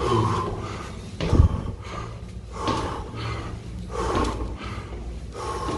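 A man breathing hard and gasping, about one heavy breath a second, winded from climbing many flights of stairs. A single thump comes about a second and a half in.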